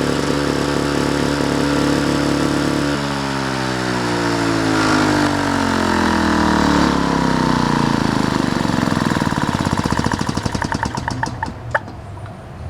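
Power Products two-stroke engine on an antique Genoa lawnmower running steadily, then dying down from about three seconds in. Its pitch falls steadily as it slows, until the last slow, widely spaced strokes fade out near the end. A single sharp click comes just before it stops.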